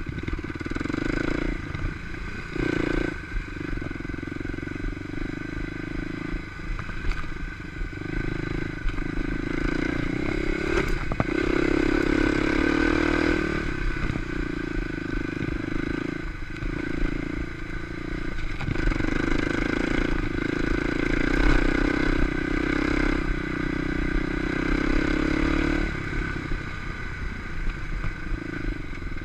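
Kawasaki KLX250's single-cylinder four-stroke engine running under load while riding, the throttle rolled on and off so the engine note surges for a second or two at a time and drops briefly between surges.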